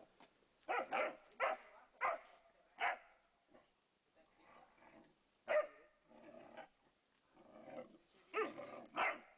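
Dogs at play barking: a quick run of about five short, sharp barks in the first three seconds, one more about halfway through and two near the end, with quieter sounds in between.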